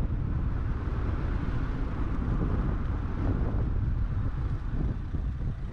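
Car driving, with a steady low rumble of road and wind noise buffeting the microphone; it drops off sharply at the very end.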